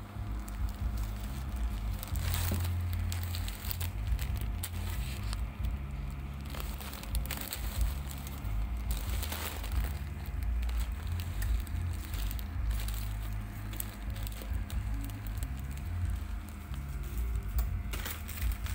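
Continuous band sealer running with a steady hum as a plastic bag of fried shallots is fed through it. The bag's plastic crinkles and crackles now and then.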